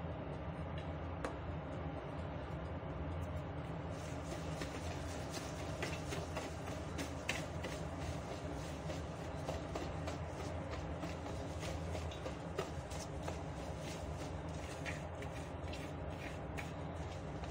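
Wire whisk beating a runny egg mixture in a plastic bowl, with quick irregular clicks and scrapes of the wires against the bowl, over a steady low hum.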